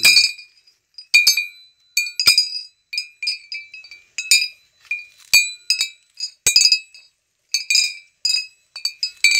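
Homemade crop-guard noisemaker: an iron rod swinging between two hanging empty glass beer bottles, knocking them in sharp glass clinks that ring on briefly, irregularly, one or two a second. The rod is hung so that wind on a cardboard vane swings it, and the clinking is meant to scare wild animals away from the field.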